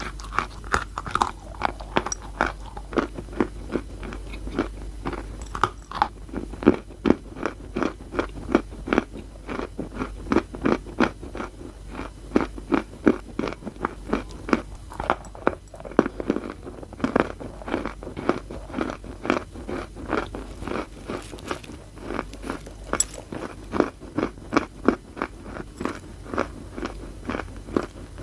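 Close-miked chewing of wet chalk: rapid, gritty crunches, about two to three a second, as the chalk is bitten and ground between the teeth.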